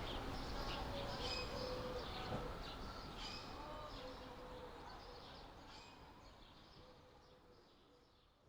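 Birds chirping and calling over a steady background hiss, fading out gradually.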